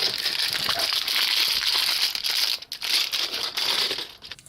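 Plastic packaging of LEGO advent calendar pieces crinkling and rustling as it is handled, with a brief pause partway through and again near the end.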